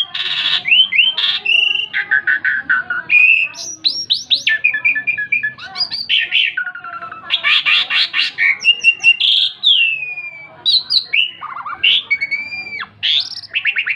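Asian pied starling in full song: a continuous, rapid run of varied whistles, slurred gliding notes and harsh chattering rattles.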